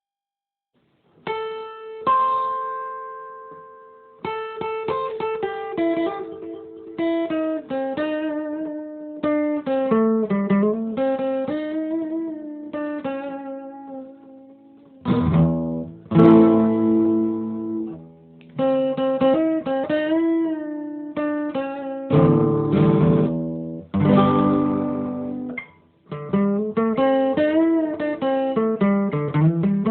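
Guitar playing solo: picked single notes and melodic runs, broken by loud strummed chords. It starts about a second in.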